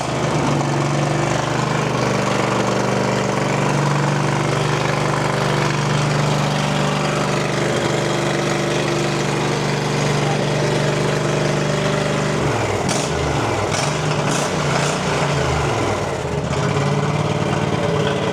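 John Deere G110 lawn tractor's Kohler Command 25 engine running steadily just after a tune-up and fuel filter change, then its speed wavering and dipping about twelve seconds in, with a few sharp clicks.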